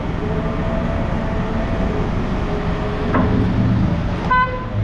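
Vehicle engine running steadily with a low rumble. Near the end comes one short beep.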